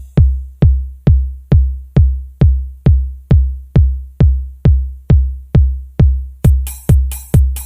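Electronic dance music: a bare four-on-the-floor kick drum beat of a little over two thumps a second, with hi-hat-like taps joining the beat near the end.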